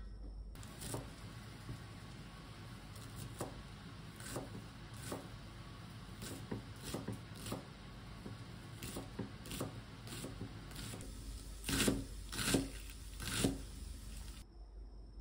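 Chef's knife slicing green onions on a wooden cutting board: irregular crisp knife strokes, roughly one or two a second, with three louder strokes against the board near the end.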